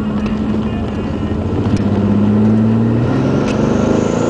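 Holden VP Commodore's engine heard from inside the cabin, revving up as the car accelerates. About three seconds in, the pitch drops as the freshly serviced automatic gearbox shifts up, then climbs again.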